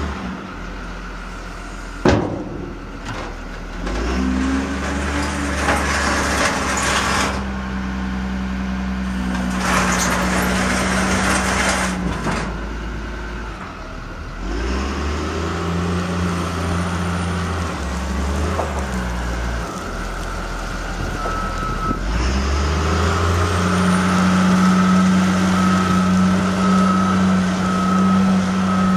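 Caterpillar IT38G wheel loader's diesel engine running and revving up and down several times as the machine works, with a thump about two seconds in and two bursts of hissing in the first half. A backup alarm beeps steadily through the last several seconds.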